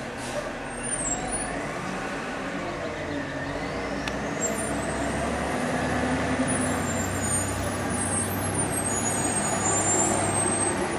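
Diesel engines of two garbage trucks, a Peterbilt 320 and an Autocar WX automated side loader, running as the trucks pull away, slowly growing louder. A faint rising whine comes in about three seconds in.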